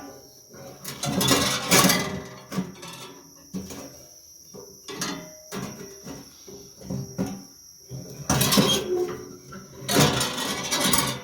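Steel wire and metal tool parts clanking and scraping as the wire is worked on a bending jig, in three longer noisy spells with scattered knocks between, over a steady high whine.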